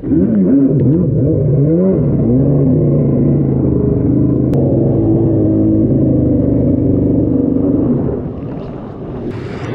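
Jet ski engine revving up and down for the first few seconds as the ski rides over waves, then holding a steady pitch. About eight seconds in it falls away and gets quieter as the ski slows into the whitewater near shore.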